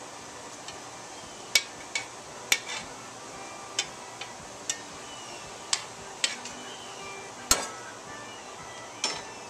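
Metal spoon knocking and scraping against a metal cooking pot while stirring browned chicken and onions, working the browned bits off the bottom: about nine sharp clinks at uneven intervals, the loudest past the middle.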